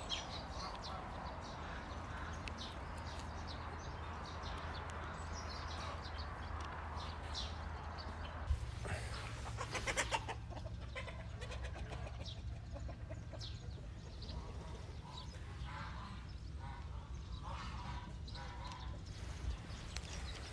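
Domestic fowl clucking and calling off and on over a low steady rumble.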